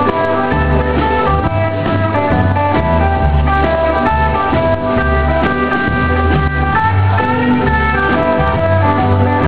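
Rockabilly band playing live: an instrumental break led by guitar, over a bass line that moves every half second or so.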